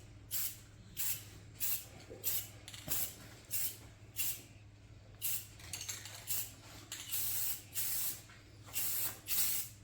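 Aerosol spray paint can sprayed in quick short bursts, about two a second, with a few longer sprays past the middle, to dust on paint for an aged patina finish.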